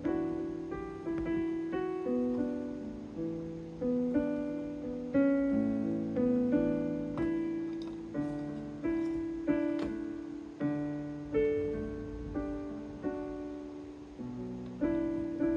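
Casio CT-S1 portable keyboard played with a piano voice: slow chords under a melody line, a new note or chord struck about once a second and each one fading away.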